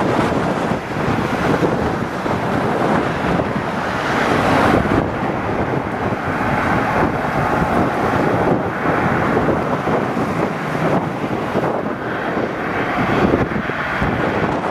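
Wind buffeting the microphone over the steady running of an approaching GB Railfreight Class 66 locomotive's two-stroke diesel engine as it hauls a freight train.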